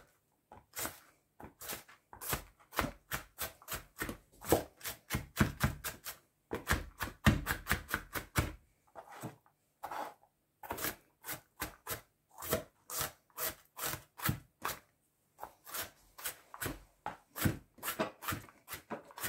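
Kitchen knife finely chopping onion on a plastic cutting board: a quick run of sharp knife taps, about four a second, with a couple of brief pauses.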